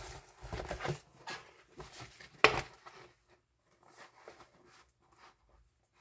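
Handling noise as a book is moved across a wooden tabletop: soft rustles and small clicks, with one sharp knock about two and a half seconds in, then a few faint taps.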